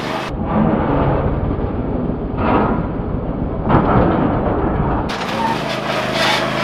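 Ariens IKON X zero-turn mower's engine running as the mower approaches, under a heavy low rumble, with two louder swells of noise about halfway through, a second or so apart.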